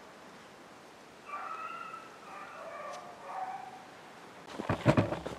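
Beagles baying in the distance for a couple of seconds, several overlapping drawn-out calls, the pack trailing a snowshoe hare. A few sharp thumps follow near the end.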